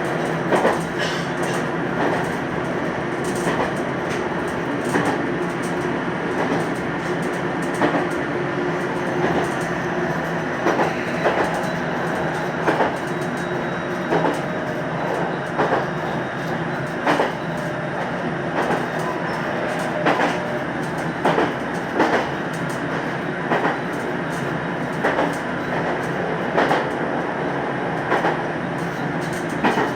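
Inside a JR Central 373 series limited express car running at speed: a steady rumble from wheels and motors, with the wheels clacking over rail joints in short groups of clicks every second or two.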